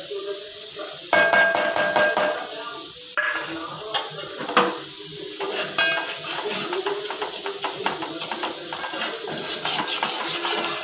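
Metal ladle clinking and scraping against a metal cooking pot while powdered spices are stirred into hot oil, starting about a second in, with the oil sizzling underneath.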